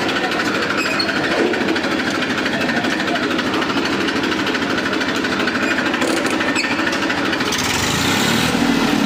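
Massey Ferguson 241 DI tractor's three-cylinder diesel engine running with a steady, rapid clatter as the tractor is driven off in first gear, getting a little louder near the end.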